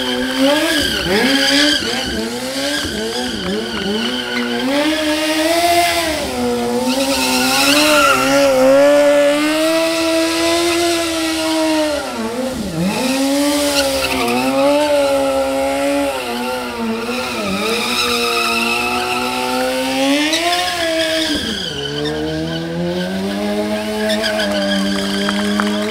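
Suzuki GSX-R 600 sportbike's inline-four engine held at high revs, rising and falling, while its rear tyre spins and squeals through a circling burnout. The revs dip sharply about halfway through and again near the end, then climb back.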